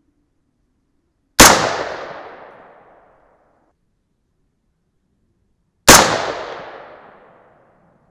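AR-15 rifle in .223 firing two single shots about four and a half seconds apart, each a sharp crack followed by an echo that fades over about a second and a half.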